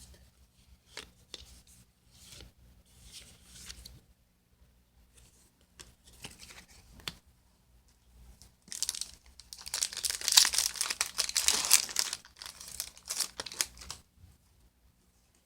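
Foil Yu-Gi-Oh booster-pack wrapper being handled and crinkled softly, then torn open with a loud, crackling rip that lasts several seconds from about nine seconds in.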